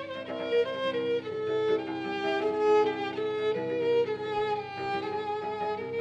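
A small chamber ensemble led by a violin plays a slow melody of held notes over a steady lower note.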